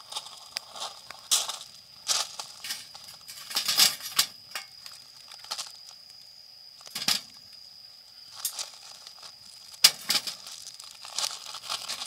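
Wood fire crackling, with irregular pops and snaps and one sharp, loud pop near the end.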